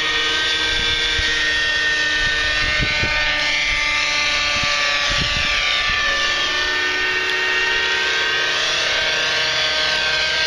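Thunder Tiger 30-size nitro RC helicopter in flight: its two-stroke glow engine runs at a steady high whine with the rotor noise. The pitch wavers and sweeps a little as the helicopter moves about.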